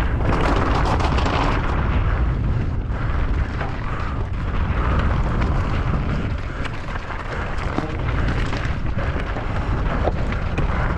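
Heavy wind rumble buffeting the microphone, with a steady rattle of small knocks and clatter from a mountain bike descending fast over rough ground.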